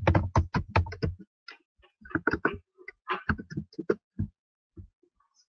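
A man's voice over a faulty webinar audio link, breaking up into short choppy fragments with dropouts between them, fading out near the end: the presenter's microphone is not coming through properly.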